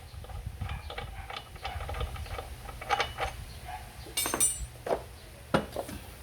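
Metal tools and small parts clinking and tapping, with scattered knocks and a few sharp ringing clinks, over a low steady hum.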